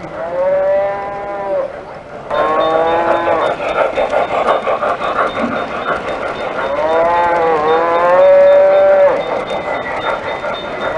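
Electronic sound-system whistle of an O-scale model steam locomotive blowing several long blasts, with the noise of the running train between them.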